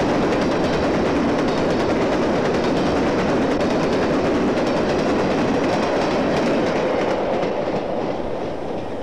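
HO-scale model freight train rolling past on the layout track, a steady rolling rumble of wheels on rail that fades from about seven seconds in as the last cars move away.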